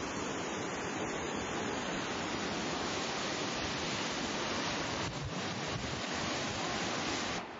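Waterfall plunging into a rock pool: a steady rush of water, cut off abruptly near the end.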